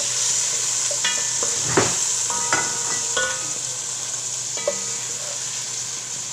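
Sliced aromatics sizzling in hot oil in a deep non-stick pot as a wooden spoon stirs them. The spoon scrapes the bottom once and knocks against the pot about four times, each knock ringing briefly.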